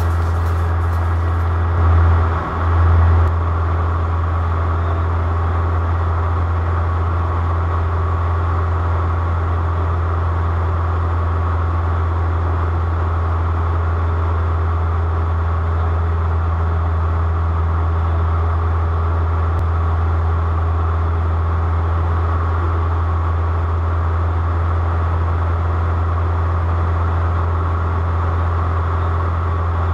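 Aircraft engine drone: a steady, loud low hum that holds unchanged, with a brief swell about two seconds in.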